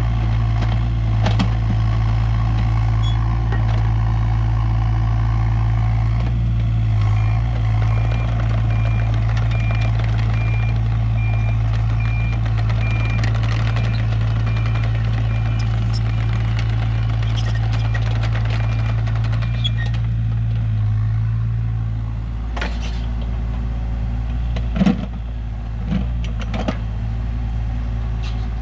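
Kato mini excavator's diesel engine running under load, with its travel alarm beeping in an even series of high beeps for about thirteen seconds. The engine eases off later, and several sharp clanks follow near the end, typical of the bucket striking rock.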